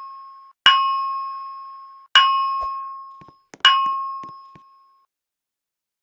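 Fire alarm voice evacuation system sounding its alarm chime between spoken messages: a bell-like tone struck three times, about a second and a half apart, each strike dying away.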